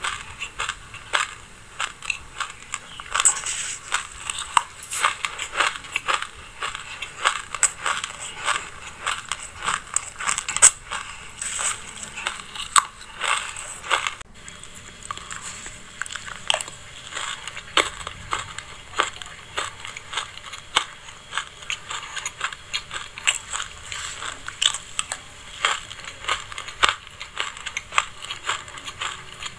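Close-miked crunching of a mouthful of dry sesame seeds being chewed: a dense, continuous run of small crisp crackles and clicks. The sound changes abruptly about halfway through.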